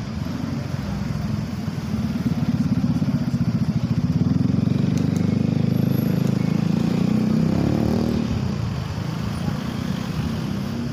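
A combustion engine running close by with a fast, even firing pulse. It grows louder about two seconds in, rises a little in pitch, and fades after about eight seconds.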